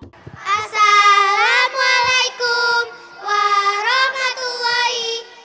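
Children singing into microphones without accompaniment: three phrases of long, held notes that glide up and down, with short breaks between them.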